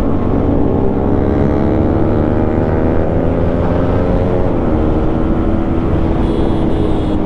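Yamaha MT-15's 155 cc single-cylinder engine, fitted with an aftermarket Akrapovic exhaust, pulling under acceleration while riding. The note climbs steadily, drops with an upshift about four and a half seconds in, then climbs again, with wind and road noise under it.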